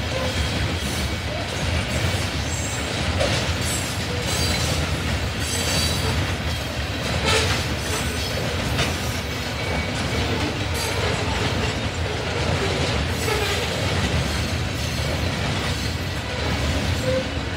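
Covered hopper cars of a freight grain train rolling past: a steady rumble of steel wheels on rail, with a few scattered clanks.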